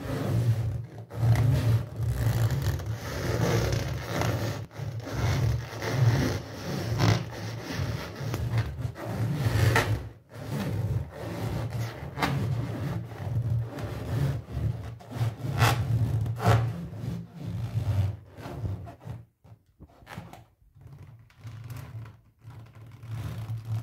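A large latex balloon squeezed and rubbed under a boot sole against a tile floor: the stretched rubber squeaks and rubs irregularly, with a few sharper squeaks, and the balloon does not burst. The sound drops off briefly near the end.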